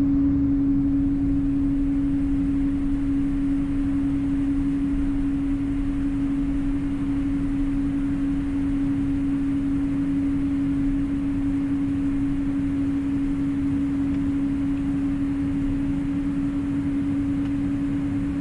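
Cabin noise inside a Boeing 777-200: a steady low rumble with one loud, unwavering hum.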